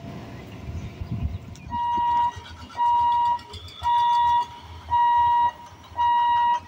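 Level-crossing warning hooter beeping in steady pulses of a single electronic tone, about once a second, as the boom barriers lift. Beforehand a low rumble from the passing train fades out.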